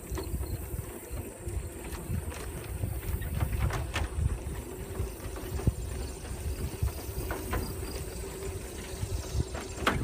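Bicycle ride noise: wind buffeting the microphone in a low rumble, with scattered sharp rattling clicks from the bike and a faint steady hum underneath.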